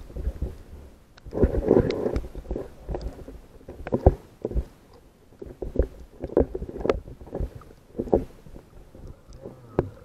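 Water sloshing and splashing around a camera at the surface while snorkelling, in irregular surges with scattered sharp knocks.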